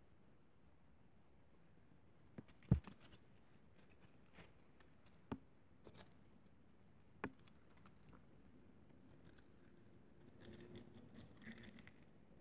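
Faint, scattered clicks and small handling noises, with one sharper knock about three seconds in and a short stretch of soft rustling near the end.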